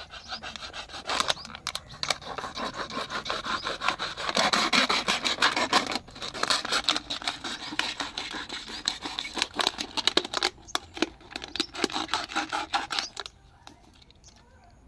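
Utility-knife blade sawing through a thin plastic water bottle: a quick run of scraping strokes with many small clicks of the plastic. It stops about a second and a half before the end.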